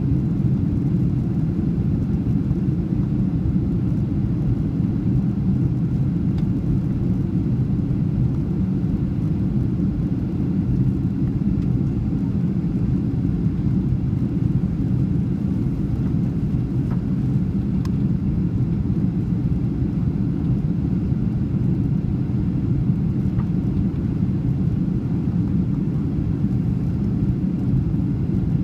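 Steady low rumble of engine and airflow noise inside the cabin of a Boeing 737-700 in descent, from its CFM56-7B turbofans and the air rushing past the fuselage.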